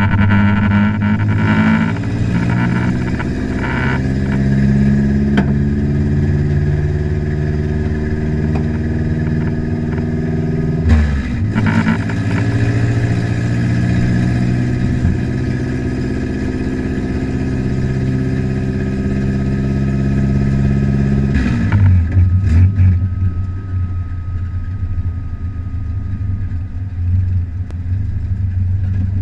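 Car engine heard from inside the cabin, its pitch climbing slowly. There is a brief break about eleven seconds in, then it climbs again. About twenty-one seconds in it drops suddenly to a lower, steady rumble.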